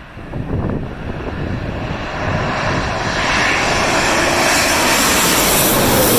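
Jet airliner on landing approach passing low overhead, its engine noise swelling from about two seconds in and staying loud. Gusty wind buffets the microphone at the start.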